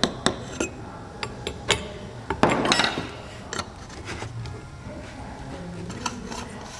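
A metal scoop clinking against the steel cap and carbide tin of a speedy moisture tester as calcium carbide is spooned in, several quick clinks. A short rough scrape a little over two seconds in, then a few light metal knocks as the tester body is fitted onto the cap.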